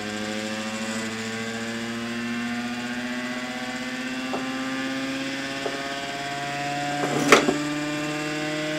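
Muller motor replication spinning under its own power as its Hall-effect-switched transistor pulses the coils: a steady hum made of several pitches that rise slowly as the rotor speeds up. A few sharp clicks sound over it, the loudest a short cluster about seven seconds in.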